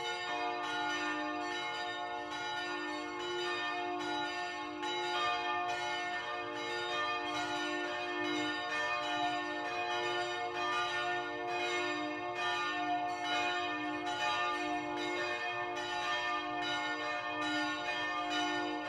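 Several large swinging bronze church bells in St. Stephen's Cathedral's south tower, cast by Pfundner in 1960, ringing together at full peal and heard from close up inside the bell chamber. Their strikes overlap in a steady, uneven rhythm of about one or two strokes a second over a continuous ringing hum.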